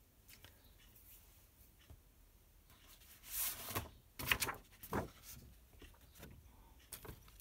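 A sheet of patterned paper rustles and slides as it is picked up and handled, with a few light taps, mostly about three to five seconds in.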